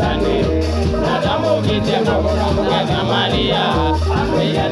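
Live band music: a man singing into a microphone over electric guitar and a bass line with a steady beat.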